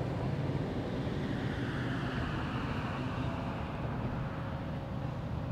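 Steady road traffic noise, with a vehicle swishing past in the middle, its sound rising and then fading away.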